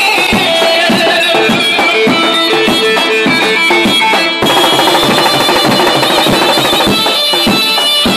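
Live folk music: an electronic keyboard playing a held, wind-instrument-like lead melody while a drum kit keeps a steady beat.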